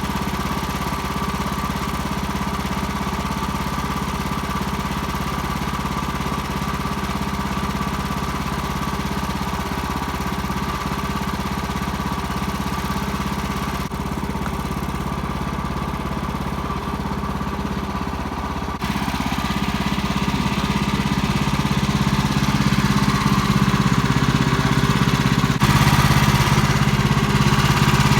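Sawmill engine running steadily while slabbing a large red oak log, stepping up louder about two-thirds through and again near the end.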